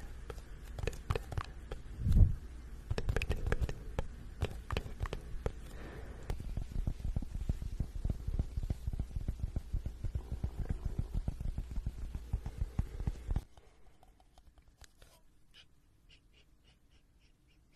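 Close-miked human stomach growling: a low rumbling full of small gurgling crackles, with one loud deep gurgle about two seconds in. It stops suddenly about thirteen seconds in, leaving only faint ticks.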